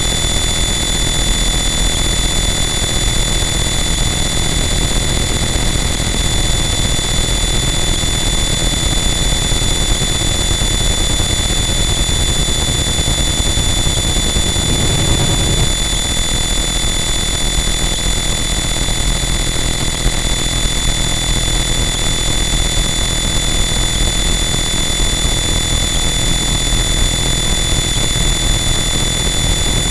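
Harsh noise wall: a loud, unchanging wall of dense distorted static with steady high whining tones running through it. Its texture shifts briefly about halfway through.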